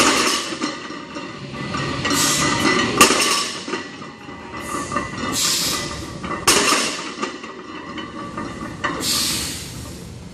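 Iron plates on a barbell loaded to 455 lb clanking down on the gym floor as each deadlift rep is lowered, three sharp clanks about three seconds apart, with the plates clinking between them.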